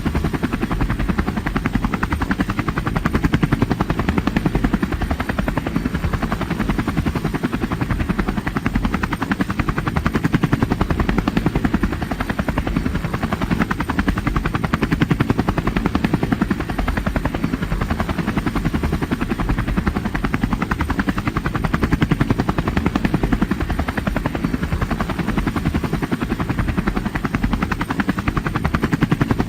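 Helicopter in flight: a steady, rapid chop of the rotor blades over the engine's drone, holding even throughout.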